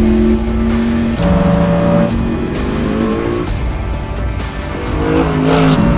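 Mercedes-AMG GT3 race car's V8 running on track, its pitch rising about two seconds in, under background music.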